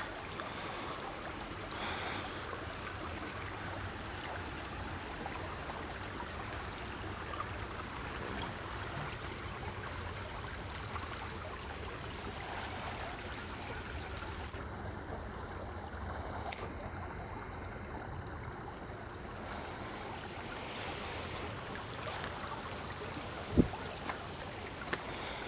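Steady rush of a small stream where water pours out of a cutoff into a pool, with one sharp knock near the end.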